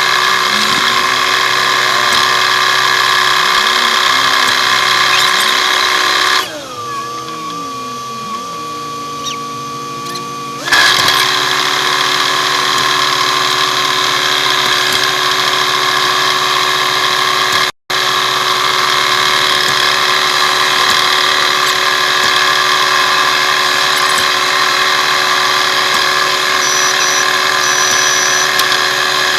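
Road-paving machinery running steadily: diesel engines droning, with a high, even whine over them. About six seconds in the sound drops to a quieter, lower hum for some four seconds, then returns at full level; it cuts out for an instant near eighteen seconds.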